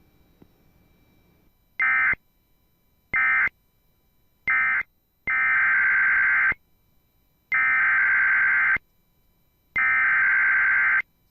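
NOAA Weather Radio SAME digital data bursts: three short bursts, the end-of-message code of the previous alert, then three longer bursts of about a second each, the encoded header of the next alert.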